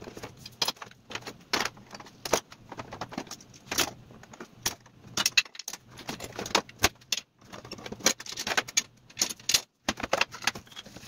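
Wooden drawer parts and tools knocking and clattering on a workbench in quick, irregular taps and clunks, as an old dovetailed drawer is taken apart and fitted back together for gluing.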